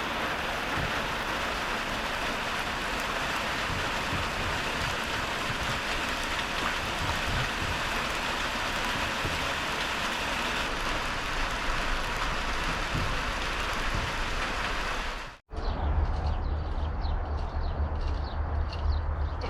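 Heavy, steady rain falling. About fifteen seconds in it cuts off abruptly and a different sound follows: a low rumble with rapid ticking.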